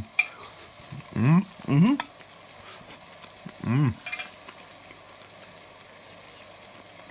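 A man's voice in three short hummed or spoken sounds, over a steady faint hiss with a few light clicks.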